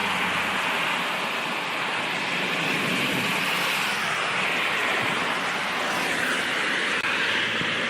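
Heavy rain and standing flood water: a steady, even rushing hiss.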